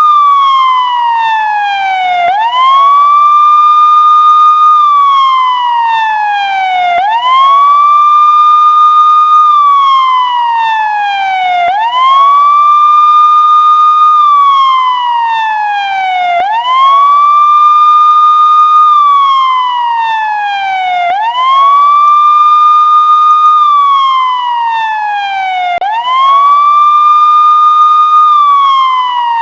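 Emergency vehicle siren sounding a slow wail: each cycle sweeps up quickly, holds a high tone for about two seconds, then slides slowly back down, repeating about every four and a half seconds.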